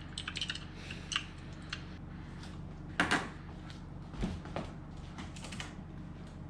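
Light clicks and knocks of things being handled, with a sharp louder knock about three seconds in and a dull thud about a second later, over a steady low hum.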